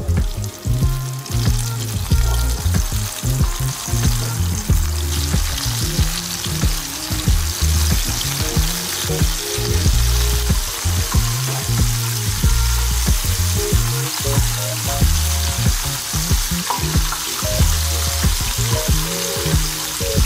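Battered chicken thighs deep-frying in hot vegetable oil, a dense steady sizzle, over background music with a repeating bass line.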